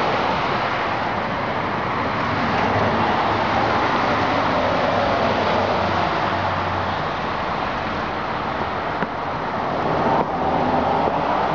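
A motor vehicle running: a steady rushing noise with a low hum underneath.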